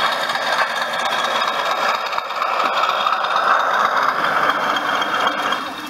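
OO gauge class 20 model locomotive's DCC sound decoder playing a diesel engine sound through its small onboard speaker as the model runs past. The engine sound grows louder a couple of seconds in and drops back near the end.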